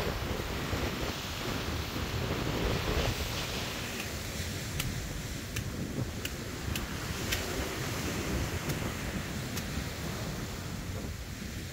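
Waves breaking and wind on the microphone, a steady rush. From about five seconds in, a machete chops into a coconut with about seven short, sharp cracks roughly a second apart.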